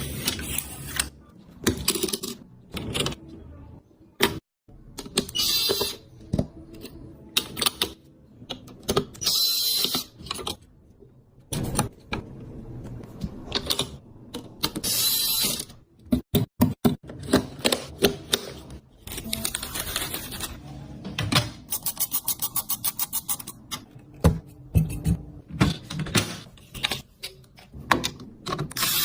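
Desktop computer parts being handled and fitted together by hand: a string of sharp plastic and metal clicks and clacks with short scraping bursts, and near the middle and after about 21 seconds, runs of rapid even ticking.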